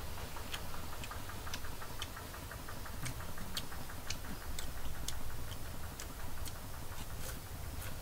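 Close-up chewing of crisp deep-fried bugs: irregular sharp crunches throughout, with a fast run of light, even ticks in the first few seconds.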